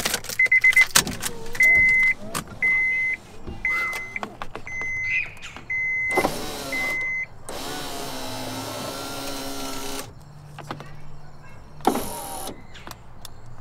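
2000 Honda Insight's driver's-door power-window motor running in short strained bursts, the longest about two seconds; the motor has worn brushes and sounds unhappy. Through the first half a warning chime beeps about once a second.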